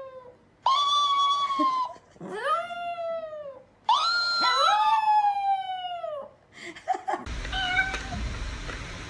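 A cat yowling: about three long, drawn-out calls that rise and then sag in pitch, the last one overlapping a second voice. The calls stop near the end, leaving a steady background hiss.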